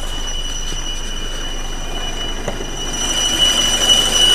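A steady, high-pitched whistle from under the hood of a running diesel car engine, over the engine's even running noise, growing louder about three seconds in. The owner suspects a crankcase ventilation (PCV) hose; he has already replaced the high-pressure fuel pump, which turned out not to be the cause, and the whistle appears only once the engine is fully warmed up.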